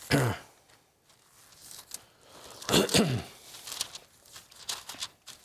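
Bible pages being leafed through on a pulpit: two louder papery flips, one at the start and one about three seconds in, with softer rustling between.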